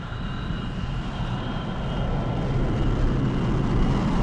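Steady low rumble of a spaceship's engines, an animated sound effect, slowly growing louder, with a faint steady high whine above it.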